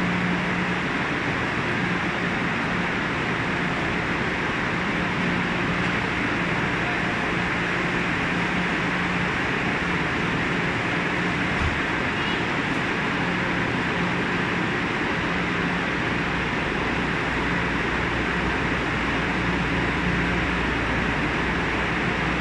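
Steady rushing ambience of a high-speed train station platform, with a low hum that comes and goes. A deeper rumble joins in during the last few seconds.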